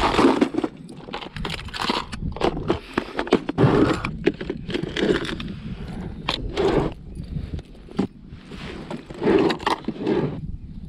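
Clear plastic tackle box and tray being handled, with fishing lures and their metal hooks and blades clattering and clinking as they are rummaged through: an irregular run of clicks, knocks and rattles.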